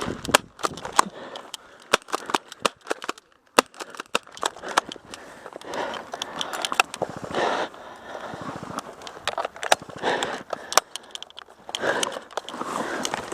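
Scattered sharp snaps and cracks at irregular intervals and uneven loudness, over rustling movement and faint voices.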